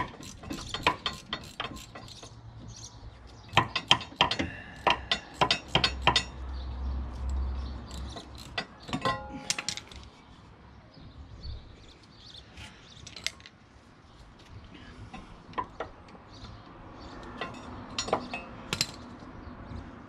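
A 3/8-inch socket ratchet clicking in runs as the rear brake caliper's guide pin bolts are wound out, busiest in the first seconds and again about four to six seconds in. Metallic clinks of tools and brake parts between the runs.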